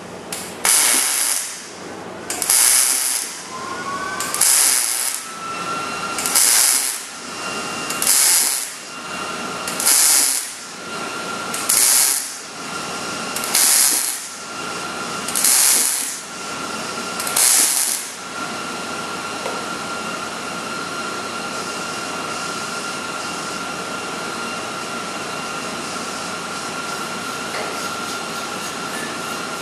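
Wire-feed welder arc crackling in about ten short bursts, one every couple of seconds, as a steel frame rail end is stitch-welded in short runs. After the last burst only a steady hiss with a faint high whine remains.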